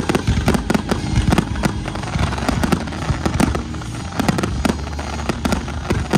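Fireworks display firing: a rapid, irregular string of sharp bangs and crackling shell bursts.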